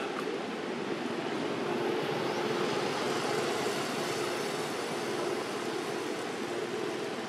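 A steady engine-like drone, swelling slightly through the middle and easing off again.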